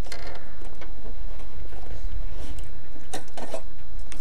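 Steady low wind rumble on the microphone, with a few scattered light clicks and rustles. No engine is running: the Yamaha DT 125 two-stroke has run dry of fuel.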